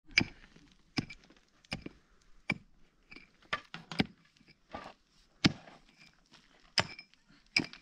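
Pick striking stony ground at the base of a boulder: about ten sharp blows, roughly one a second and unevenly spaced, each with a brief metallic ring.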